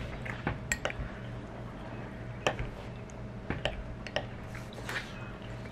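Scattered light clicks and clinks of dishes and utensils being handled, about ten in all at irregular intervals, over a steady low hum.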